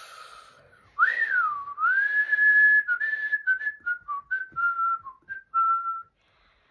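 A person whistling through pursed lips, after a breathy blow of air: a quick swoop up and back down, a held note, then a string of short notes stepping gradually lower, stopping about six seconds in.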